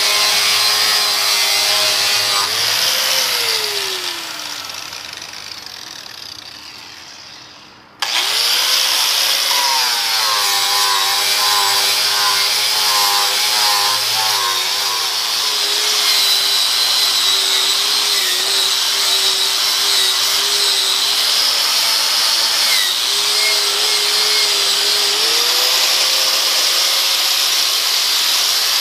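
Angle grinder fitted with a Norton Rapid Strip abrasive wheel, scouring rust off a cast iron lathe faceplate: a steady motor whine over a harsh grinding hiss, the pitch dipping as the wheel is pressed into the iron. About three seconds in it is switched off and winds down. Then it is abruptly running again at full speed, rising briefly when lifted off the work near the end.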